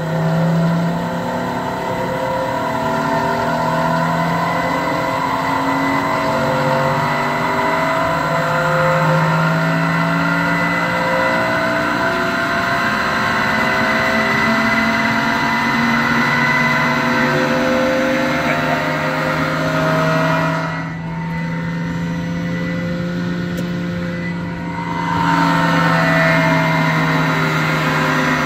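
A Baldor 1 HP three-phase fan motor running on a VFD, turning a direct-drive fan wheel, with a loud whirring noise of many wavering, warbling tones. This is the noise of worn, failing motor bearings. The sound drops a little for a few seconds about three quarters of the way through, then comes back.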